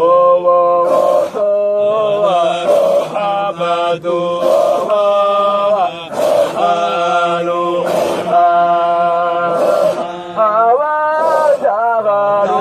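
Sufi dhikr chant (nasheed) sung in the Qadiriya style: voices hold long notes that step and slide from pitch to pitch, phrase after phrase.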